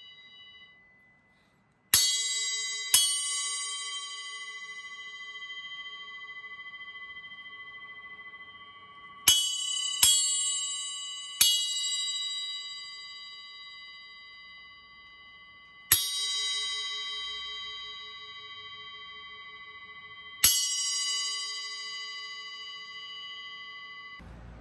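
A 6-inch Arborea Knight bell cymbal struck with a drumstick seven times: two hits a second apart, then three quick ones, then two more spaced out. Each hit is a bright ping that rings on for several seconds as a steady, clear, bell-like tone.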